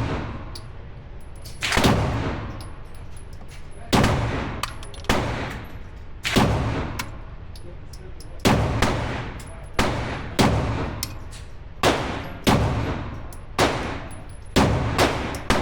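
Gunshots at a shooting range, fired singly at an uneven pace of roughly one a second, sometimes two in quick succession, each followed by a ringing echo.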